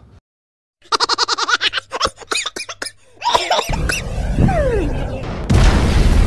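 Meme sound effects: a fast, rhythmic cartoon laugh, then a rushing noise with a short falling whistle, and a loud crash-and-explosion about five and a half seconds in as a toy plane smashes into a truck.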